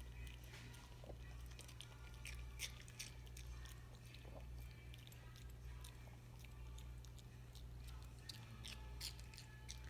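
Pomeranian chewing and biting watermelon: faint, irregular wet crunches and clicks of its jaws, over a steady low hum.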